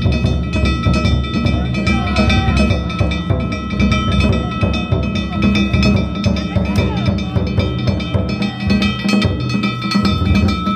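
Danjiri float festival music (narimono): taiko drums beaten fast and continuously, with metal hand gongs (kane) clanging over them in a steady ringing din.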